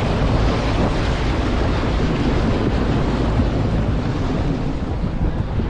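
Wind buffeting the microphone on a boat under way, over a steady rush of water.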